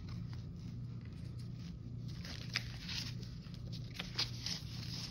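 Rustling and a few light clicks as papercraft kit pieces are handled, starting about two seconds in, over a steady low hum.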